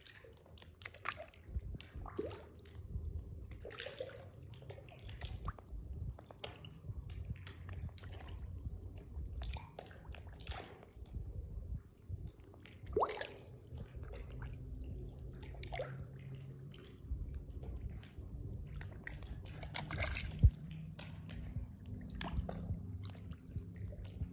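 Small irregular drips, splashes and sloshes at a pond's surface as goldfish feed on floating bread, over a low rumble. One sharper splash comes about twenty seconds in.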